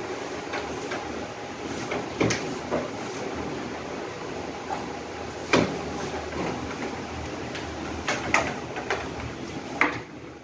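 Split air conditioner being serviced inside a plastic cleaning cover: a steady rushing noise with a few sharp knocks from the work on the unit, the loudest about halfway through.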